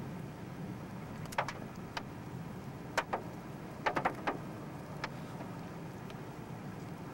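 A steady low rumble with a scattering of sharp clicks and knocks, about ten of them, bunched between about one and five seconds in.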